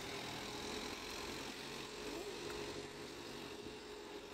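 A steady, quiet mechanical hum holding one even tone over a low outdoor background noise.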